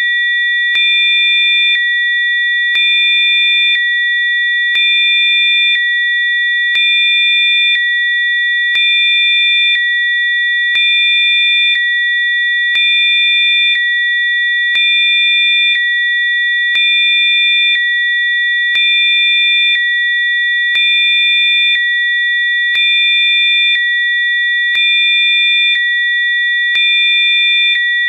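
Synthesised sine-wave healing-frequency tones: several high, pure pitches held steadily together. A lower tone and a few extra pitches switch on and off in a regular pulse about every two seconds, with a faint click at each switch.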